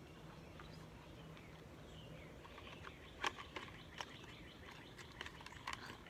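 Quiet outdoor ambience with faint bird chirps and a scatter of small clicks and taps from hands working craft materials in a box lid, the loudest tap about three seconds in. A faint low hum runs through the first half.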